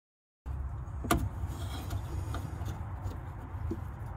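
Small metallic clicks of a very small screwdriver working a lock washer off the bottom heater (Bowden) cable on a Porsche 356 dash: one sharp click about a second in and a few fainter ones later, over a steady low hum.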